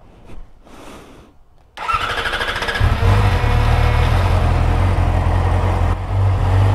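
2020 Yamaha R6's inline-four engine cold-started on its stock exhaust. The electric starter whirs briefly about two seconds in, then the engine catches and settles into a steady idle.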